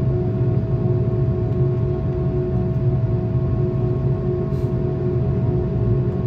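Airbus A330 jet engines running at low power, heard from inside the passenger cabin: a steady low rumble with a few steady hums on top.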